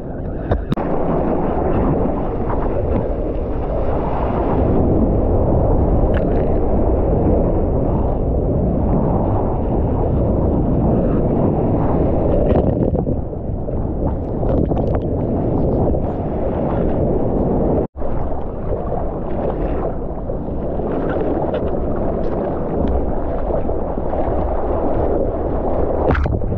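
Loud rush of breaking whitewater and wind on a GoPro's microphone as a surfer rides waves, with spray hitting close by. The sound cuts out for an instant about two-thirds of the way through at an edit, then the rush resumes.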